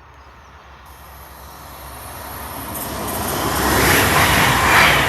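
Diesel passenger train, a Newcastle to Reading service, approaching and passing through the station; its rumble and rushing noise grow steadily louder to a peak near the end.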